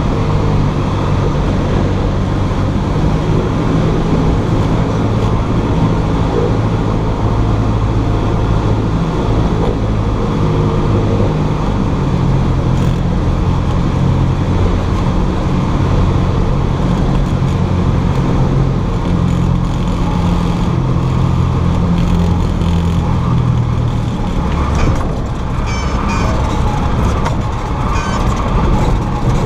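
Cessna 172's engine and propeller droning steadily, its pitch shifting a few times with the lowest tone dropping about 25 seconds in.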